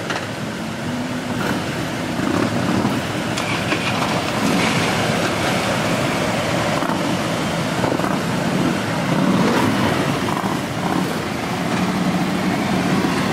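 Several Harley-Davidson V-twin motorcycles running together as the group pulls away, the engine sound growing louder as bikes ride past close by.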